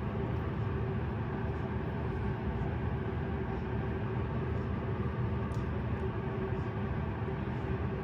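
Steady low rumble with a constant faint hum running under it, the continuous background noise of a kitchen with the stove going.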